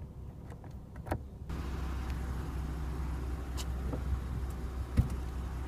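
A few light clicks of the overhead dome-light buttons, then a steady low rumble and, about five seconds in, a single sharp clack of the trunk lid's latch releasing.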